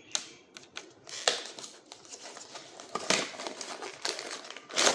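Blind-box packaging being pulled open by hand, with irregular crinkling and tearing of plastic wrapping and short rustles, a few louder crackles spread through.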